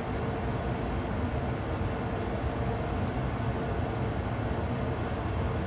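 Steady cockpit noise of a Boeing 737-800 full flight simulator on final approach under autopilot: an even low engine and airflow rumble, with faint, irregular short high pips.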